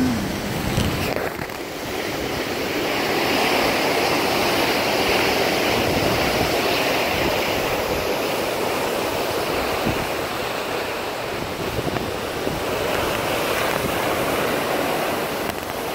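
Steady rushing of seawater churned along the hull of a moving cruise ship, with wind on the microphone.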